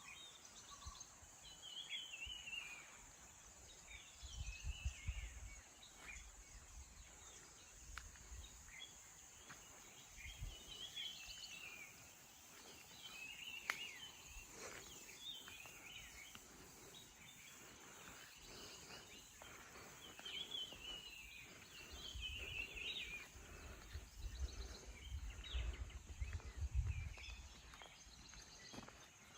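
Wild birds chirping and calling in short repeated phrases, over a steady high-pitched hiss. Dull low rumbles come in twice, briefly a few seconds in and longer in the last third.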